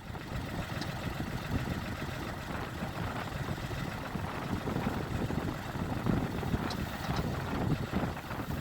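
Tractor engine running steadily, pulling a mounted potato planter, with a few faint ticks.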